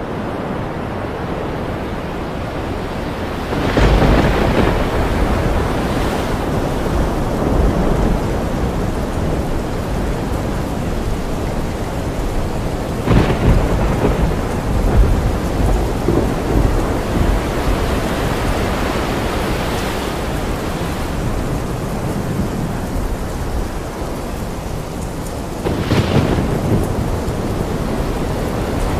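Sailboat pounding through a rough sea: steady rushing water and wind with a deep rumble, rising three times in loud surges of waves breaking and spray over the deck, about 4, 13 and 26 seconds in.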